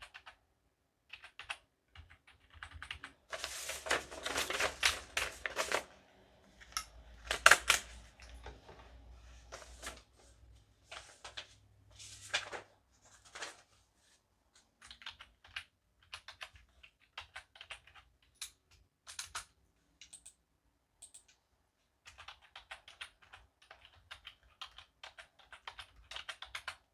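Typing on a computer keyboard: quick keystrokes in bursts with short pauses, with a denser, louder flurry around four to six seconds in and a few sharp, loud clacks about seven and a half seconds in.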